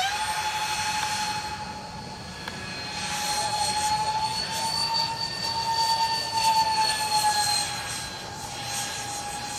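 Twin electric ducted fans of a Freewing Su-35S radio-controlled model jet whining at high throttle. The pitch rises a little in the middle and eases near the end, and the loudness swells and fades as the jet manoeuvres.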